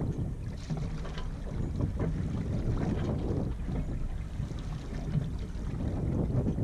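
Wind rumbling unevenly on the camera microphone, over faint water noise along the hull of a Yamaha 24 sailboat making slow way in light wind.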